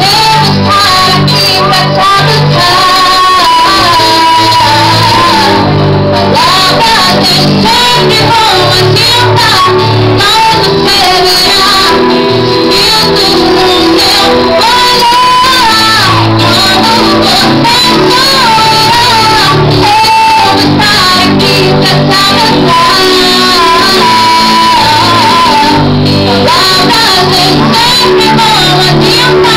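A woman singing a slow melody into a microphone, amplified, over sustained electronic keyboard chords.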